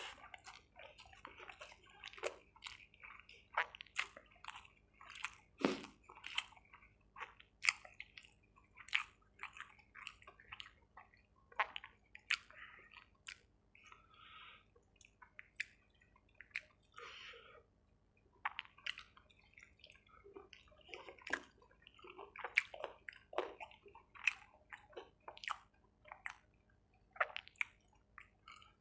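Close-miked chewing and wet mouth sounds of someone eating chicken curry with rice: irregular smacks and crunchy clicks, several a second, with short pauses.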